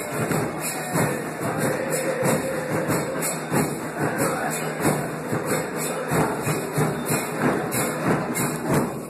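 A large crowd of football supporters chants a terrace song in unison, with drums beating a steady rhythm under the singing.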